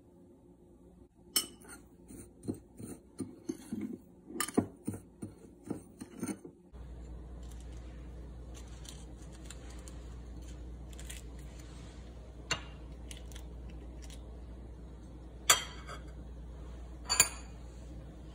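Metal measuring spoon clinking and scraping against a glass bowl of spices, in quick repeated strikes for several seconds. Then a steady low hum with three sharp clicks spread over the rest, as green chilies are handled with a knife over a ceramic plate.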